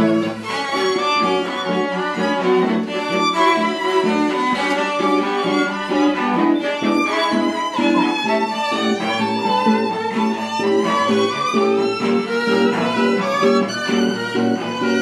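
Background music played on bowed strings, with a violin to the fore, running on steadily with changing notes.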